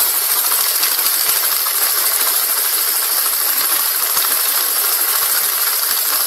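Steady, even hissing noise with a fine crackle, mostly high-pitched and unchanging in level.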